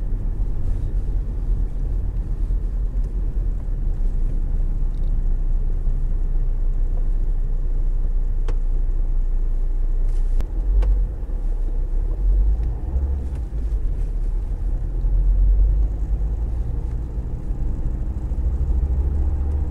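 Steady low road rumble of a car driving in city traffic, heard from inside the cabin.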